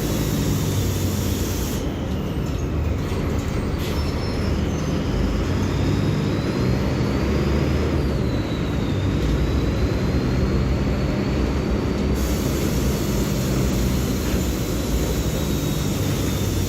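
Diesel engine of a Marcopolo Torino city bus on a Mercedes-Benz OF-1724L chassis, running with a steady low drone while the bus is under way. A faint high whine rises and falls in the middle.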